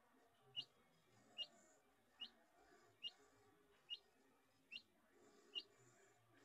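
Chicken chick peeping in the incubator during hatching: short, rising peeps repeated at an even pace, a little under one a second, seven in a row.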